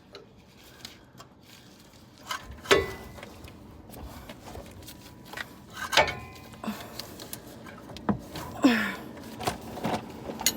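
Hand tools on the brake caliper bolts of a Dodge Ram 3500: scattered sharp metal clicks and clanks of a wrench or socket, the loudest about three and six seconds in, a couple with a brief ring.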